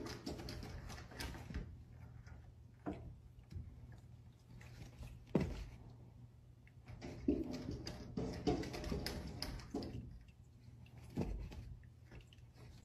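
Faint, scattered rustling and a few light knocks from cats moving about, with sharper single taps about three, five and eleven seconds in.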